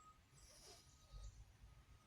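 A faint, short breath a little after half a second in, over a bird's repeated short chirps.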